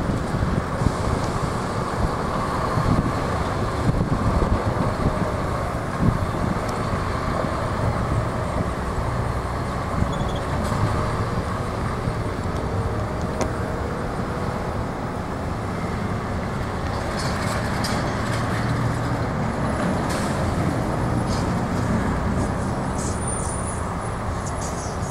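Heavy diesel hi-rail utility truck pulling away and driving off down the road: its engine and tyres run steadily under general road noise.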